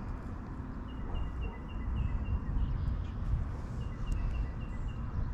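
Wind rumbling on the microphone, while a songbird repeats a quick run of short high notes, about five a second, twice.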